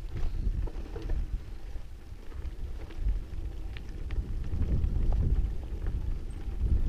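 Low rumbling noise from wind and the ride, with a few faint clicks and rattles, as a mountain bike rolls along a rough hill track.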